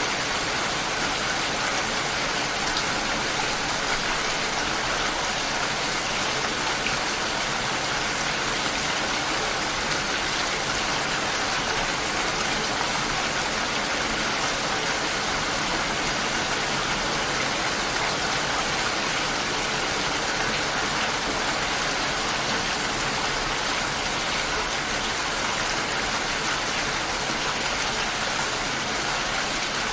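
Steady light rain falling, an even hiss with no thunder.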